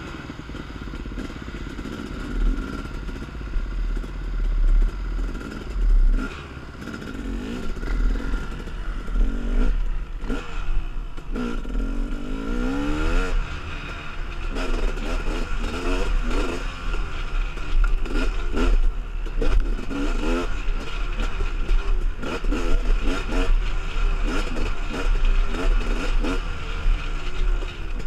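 Dirt bike engine revving up and down repeatedly as it is ridden over rough, rocky trail, with frequent knocks and clatter from the bike over rocks.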